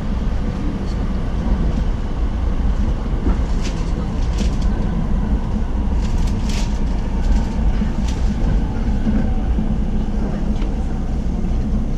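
Inside the passenger cabin of a JR West electric commuter train on the move: a steady running rumble with a few sharp clicks from the wheels, and a faint motor whine slowly falling in pitch.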